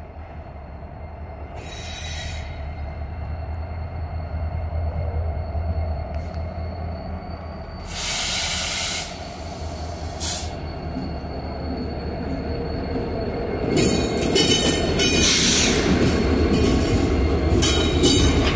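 Diesel freight locomotive approaching and passing close, its engine drone growing steadily louder, with a loud burst of hiss lasting about a second around the middle. Near the end, as it draws alongside, wheels click and squeal on the rails.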